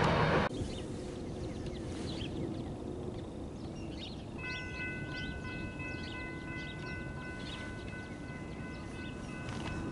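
Loud train noise cuts off abruptly about half a second in. What is left is a quiet outdoor background with birds chirping. About four seconds in, a steady high-pitched whine of several held tones starts and keeps going.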